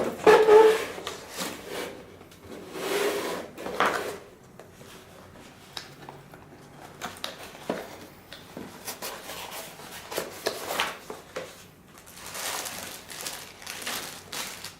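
Cardboard box and packaging being handled and unpacked: irregular rustling, rubbing and scraping with scattered light knocks and clicks.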